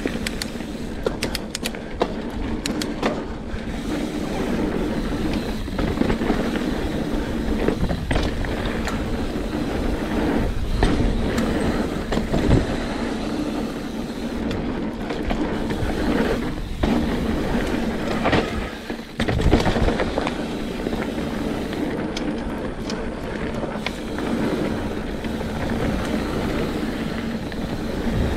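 Mountain bike rolling fast over a hard-packed dirt singletrack: a steady rumble of knobby tyres on the trail, with frequent clicks, knocks and rattles from the bike over bumps.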